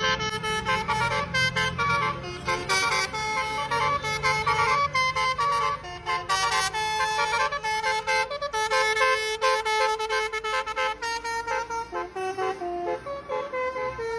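Basuri telolet horns playing quick melodic phrases of rapidly changing notes, sounded continuously over a running vehicle engine.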